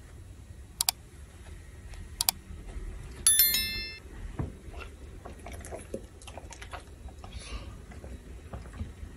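Two sharp mouse-style clicks about a second and a half apart, then a short bright bell ding that rings out quickly: a like/subscribe-button sound effect, over faint room noise.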